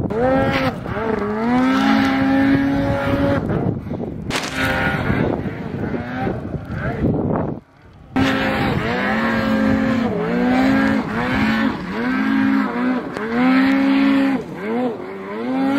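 Snowmobile engine revving up and down over and over as the sled is throttled through deep powder snow, dropping out briefly about halfway through.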